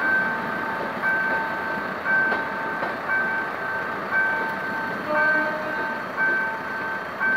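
Level-crossing warning alarm beeping steadily about once a second in a two-note electronic tone, over the rumble of passenger coaches rolling past on the rails.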